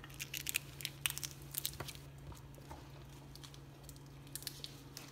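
Crinkly plastic candy wrapper handled in irregular short crackles and clicks as a sour candy is unwrapped, over a low steady hum.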